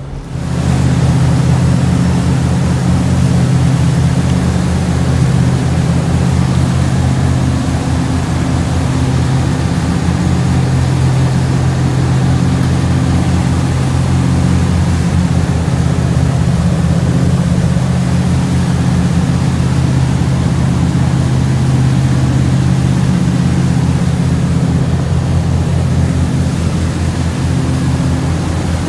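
Fishing boat's engine running steadily: a deep, even hum with a hiss over it. It comes up to a steady level about half a second in.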